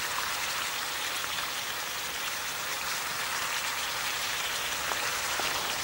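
Steaks frying in hot oil in a pan: a steady sizzle.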